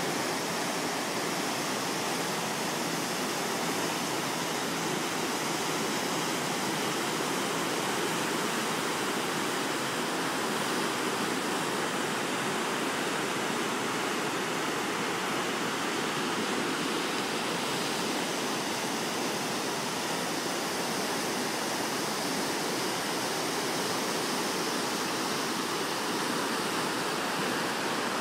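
Swollen mountain river in flood: fast, muddy water rushing and churning over stones and boulders, a steady hiss with no change.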